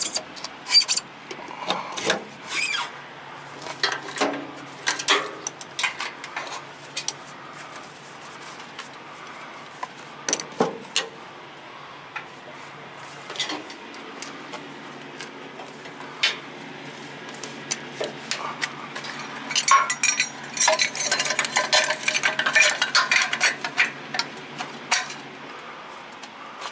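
Metal clinks, clicks and knocks at irregular intervals as trailer coupling hardware is handled, the air-line glad hands and fittings, with a denser run of rattling clatter about twenty seconds in.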